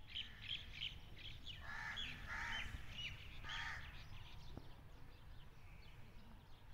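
Birds calling: quick high chirps at first, then three louder, longer calls between about one and a half and four seconds in, over a steady low background rumble.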